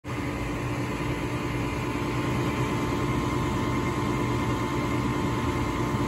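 Gas furnace's draft inducer motor running with a steady hum while the hot surface igniter heats up, before the burners light.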